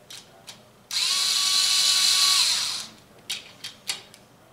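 Cordless power driver running a rocker-box bolt down on a Harley-Davidson Twin Cam engine: a motor whine that winds up about a second in, holds for about two seconds, then winds down. A few light clicks follow near the end. The bolt is being drawn down while the lifters are still pumped up, not bled down.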